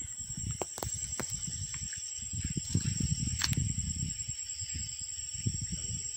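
Several puppies eating from a shared bowl: rapid, irregular chewing and smacking, with a few sharper clicks. A steady high-pitched tone runs underneath.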